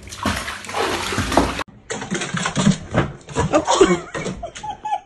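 A kitten plunging into a bathtub of water with a splash and churning water for about a second and a half. It stops abruptly, and louder, choppy voice-like sounds follow.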